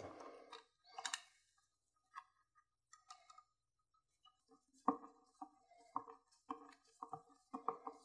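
Faint clicking of a screwdriver turning a screw that fastens a plastic smoke-alarm back plate to a ceiling electrical box: a few scattered clicks, then a run of sharper clicks about two a second in the second half.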